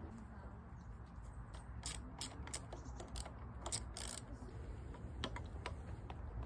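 Irregular sharp metallic clicks and taps from hand work on a motorcycle's handlebar and its fittings, over a low steady background rumble.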